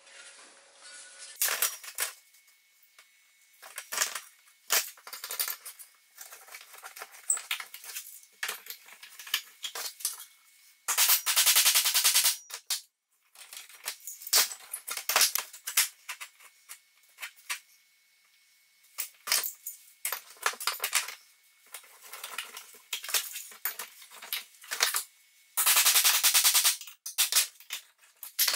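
Steel hammer striking a round-edged metal bar to press ribs into sheet steel clamped over a wooden former, giving sharp metallic strikes in irregular runs. Dense, rapid flurries of blows come about 11 seconds in and again near the end.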